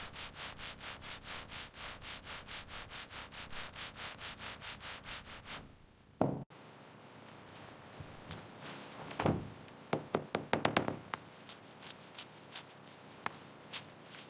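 Rapid back-and-forth hand rubbing strokes on a surface, about five a second, like hand sanding or scrubbing. It stops after about five and a half seconds. Then come scattered clicks and knocks of parts being handled, one louder knock near the middle and a quick cluster of clicks just after.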